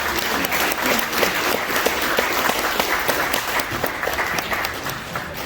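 Audience applauding, many hands clapping together, fading near the end.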